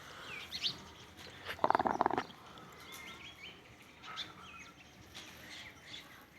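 Small birds chirping and twittering. About two seconds in comes one louder, buzzy animal call lasting under a second.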